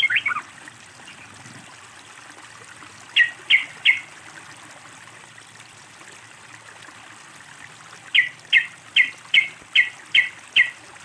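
Yellow-vented bulbul (trucukan) calling. A chattering phrase ends just after the start, then three sharp notes come about 3 s in and seven more from about 8 s in, each falling in pitch, over a steady trickle of running water.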